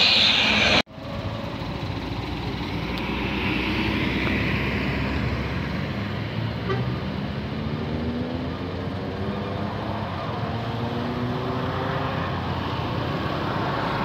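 A loud rushing sound cuts off abruptly just under a second in, followed by road traffic. A bus approaches and passes, its engine note climbing slowly as it speeds up.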